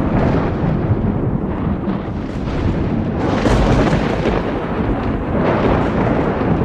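Thunder rumbling continuously through a storm, swelling into a louder, sharper peal about three seconds in that dies back to rumbling.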